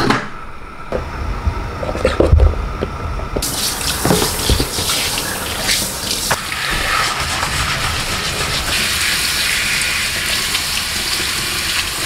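Kitchen faucet running into a stainless steel sink, a steady rush of water over leaves being rinsed under it, starting about three seconds in. Before it there are a few knocks and clinks.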